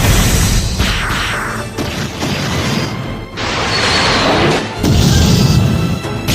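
Anime fight sound effects: a sharp impact at the start, then loud crashing hits and rushes of noise with a low rumble, over the film's score.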